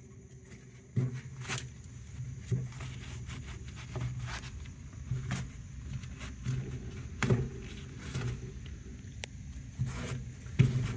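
Irregular scrapes, rubs and knocks of dirt being cleaned by hand from around a car's fuel pump housing.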